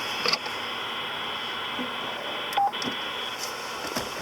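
CB radio hissing steadily with static, with a click near the start, a short single beep about two and a half seconds in, and another click near the end.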